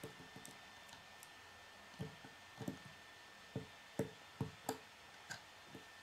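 K'nex plastic pieces clicking as they are handled and fitted together: about eight light, separate clicks, starting about two seconds in.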